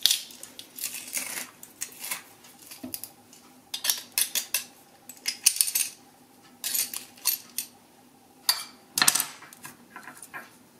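Metal garlic press clicking and clinking as it is squeezed and handled, in several short bursts of clatter with quiet gaps between.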